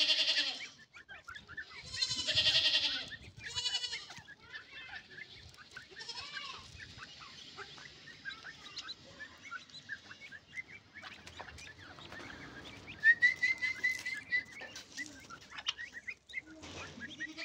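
Young teetar partridges calling. Several loud harsh calls come in the first four seconds, followed by a run of quieter short chirps and peeps, and a clear high trill of about eight even notes around thirteen seconds in.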